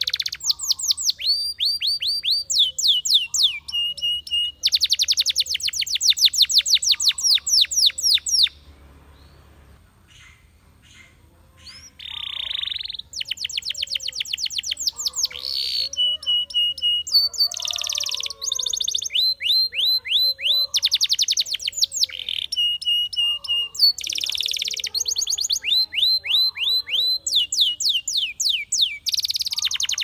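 Spanish Timbrado canary singing in long, fast trills of rapidly repeated notes, many sliding downward, at several pitches one after another. About nine seconds in it falls silent for some three seconds, then takes up the song again.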